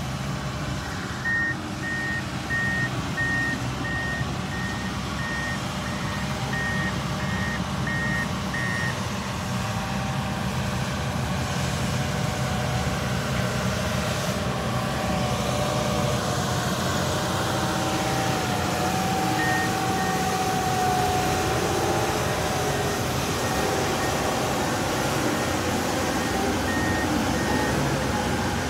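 Diesel engine of a Case four-wheel-drive tractor running steadily under load as it pulls a loaded scraper pan through dirt, with a whine that is strongest in the middle. A backup alarm beeps about twice a second through the first nine seconds, and briefly twice more later.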